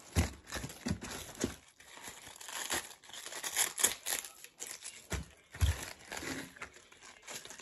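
Romaine lettuce leaves being snapped off the head and torn apart by hand: an irregular run of crisp crackles and tearing, with a few dull bumps.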